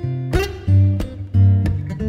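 Background music: strummed acoustic guitar with a bass line.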